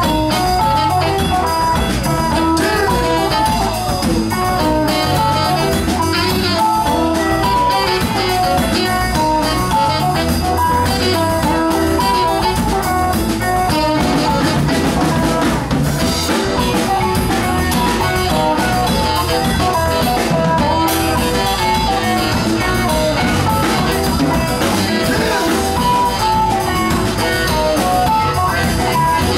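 Live Latin rock band playing an instrumental passage: electric guitar, bass guitar, saxophone and keyboard over a drum kit, with a steady beat and no singing.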